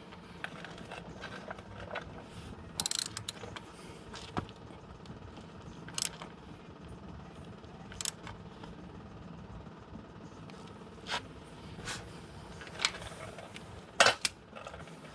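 Hand tools working on a Harley-Davidson primary chain adjuster as it is tightened: scattered metal clicks and knocks, with a short run of ratchet-like clicks about three seconds in and the loudest, a quick double knock, near the end.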